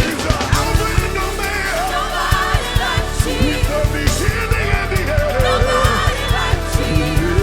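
Live gospel church band playing an up-tempo groove: drums hitting about four times a second over heavy bass, with a voice or keyboard winding through melodic runs above.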